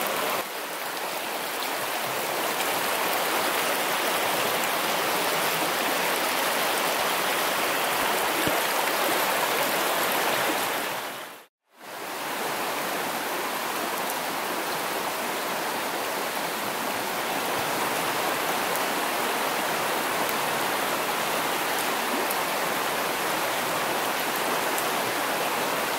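A small rocky mountain stream running over shallow riffles, a steady rush of water. The sound drops out briefly about halfway through, then returns.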